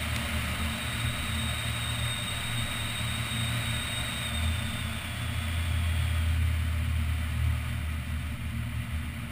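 Wind and road noise heard from an action camera mounted on the roof of a moving car: a strong, uneven low rumble under a steady hiss of tyres on wet pavement. A faint high whine fades out about halfway through.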